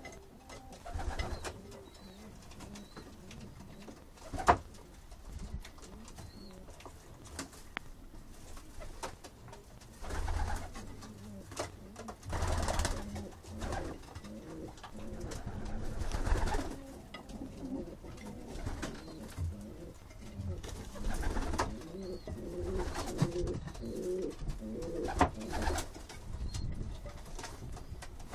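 Domestic pigeons cooing in a loft, with wing flaps and rustling as a bird takes off and lands. A single sharp click comes about four seconds in.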